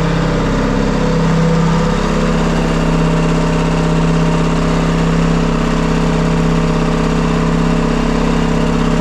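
Turbocharged Detroit Diesel 3-53 three-cylinder two-stroke diesel engine running steadily at an even speed.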